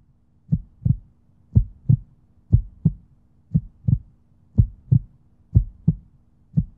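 Heartbeat sound effect: paired low thumps, lub-dub, about one pair a second, over a faint steady low hum.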